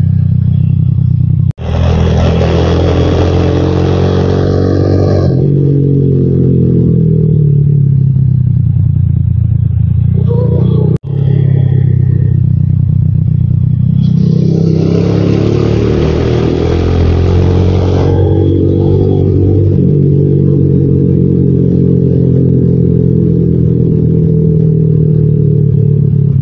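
Motorcycle engine running under way, its pitch rising and falling with the throttle, with a rush of wind noise over it twice. The sound cuts out for an instant twice.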